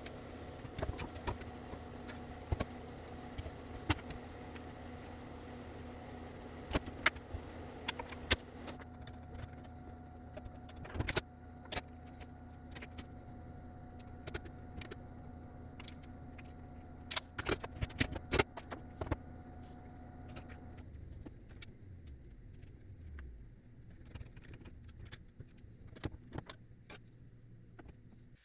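Scattered light clicks and clatter of refrigerator shelves and parts being handled, over a steady electrical hum that cuts off about three quarters of the way through.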